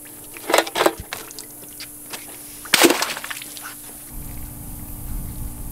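Crappie being put into a wire-mesh fish basket hung in the water off the dock: a couple of quick splashes and rattles, then a louder splash about three seconds in. A low rumble follows near the end.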